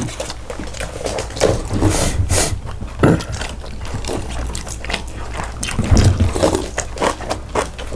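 Close-miked eating: wet chewing and mouth sounds with scattered short clicks of utensils, over a steady low hum.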